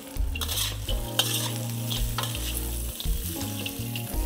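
Metal spatula scraping and clinking around a steel wok, stirring raisins, cashews and fried onions while the hot ghee and oil sizzle. Sharp scrapes come every half second or so.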